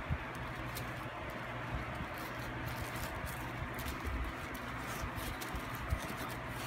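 Soft handling noise: hands moving a sneaker about in a cardboard shoebox, with a few light bumps over a steady hiss.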